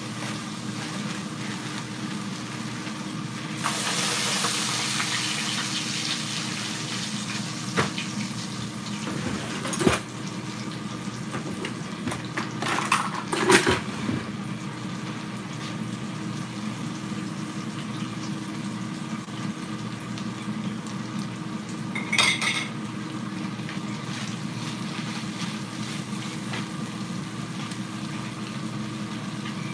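Crumbled sausage and onions frying in a skillet, a steady sizzle that swells into a louder hiss for a few seconds near the start. A metal spatula knocks against the pan several times.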